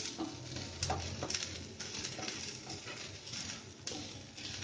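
Wooden spatula stirring and scraping chopped onion and cabbage around a frying pan as they sauté, a quick run of irregular scrapes and light taps.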